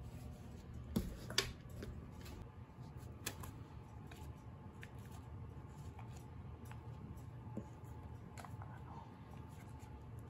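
Quiet room hum with a few soft clicks and knocks, the two loudest about a second in: a German shorthaired pointer mouthing and handling tennis balls.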